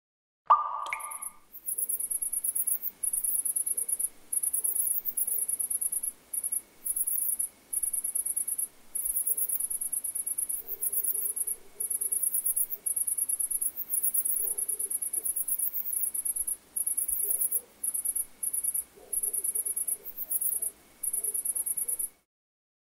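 A sharp click about half a second in, then high-pitched insect chirping in pulsed trills of a second or two with short gaps between, stopping abruptly near the end.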